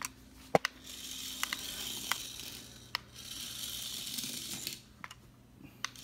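Miniature RC toy car's tiny electric motor whirring in spurts as it drives and stops, with several sharp clicks, the loudest about half a second in. The motor falls silent for a moment near the end, then starts again.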